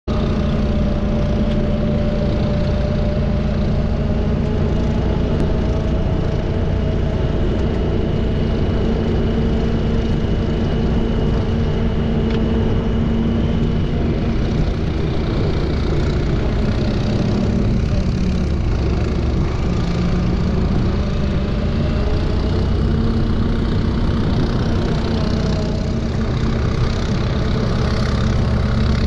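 Off-road vehicle engine running steadily at trail-cruising speed, a continuous drone with a low rumble underneath. The engine note dips briefly about two-thirds of the way through, then comes back.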